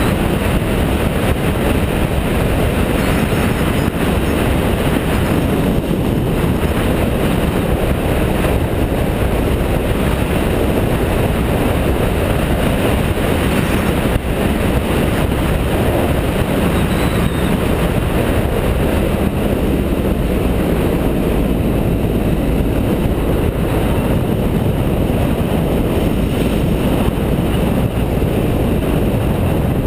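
BMW F650GS motorcycle riding at road speed: steady wind rush on the camera microphone over the running engine.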